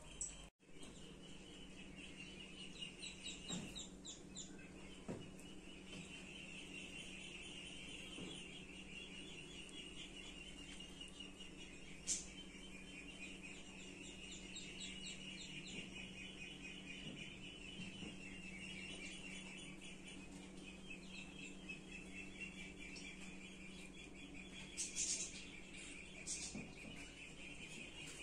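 Outdoor ambience of insects and birds chirping: a steady, rapidly pulsing chirp runs throughout. A few brief higher chirps come about three seconds in and again near the end, over a faint low hum.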